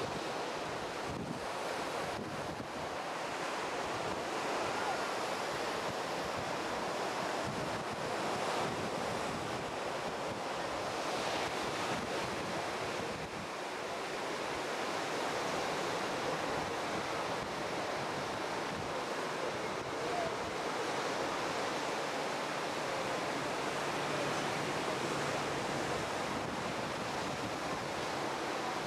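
Ocean surf washing steadily onto the beach, mixed with wind rumbling on the microphone.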